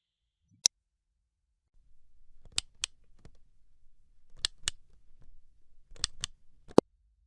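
A run of UI and button click sound effects: one sharp click, then pairs of clicks about a quarter second apart, three times, and a last single sharp click. A faint low hum sits under them from about two seconds in.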